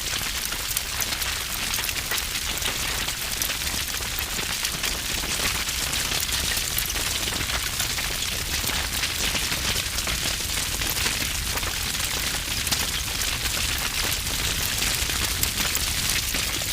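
Wood fire burning with dense, heavy crackling: many sharp pops and snaps over a steady low rumble.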